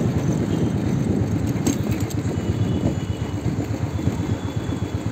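Riding a motorbike: a steady, choppy rumble of wind buffeting the microphone, mixed with engine and road noise.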